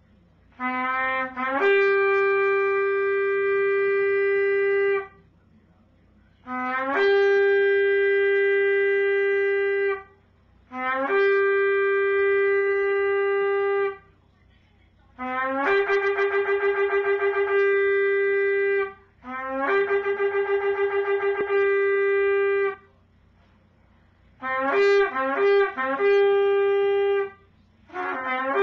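A horn blown in a series of long single-note blasts, each starting on a brief lower note and jumping up to a held higher one. Two blasts in the middle waver, and near the end the blasts break into short, choppy notes before another begins.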